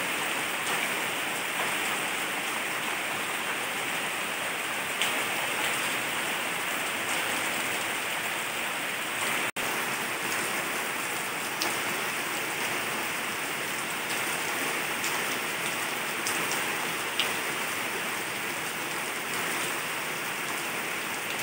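Steady heavy rain falling on wet ground and foliage, with a few louder drops; the sound cuts out for an instant about ten seconds in.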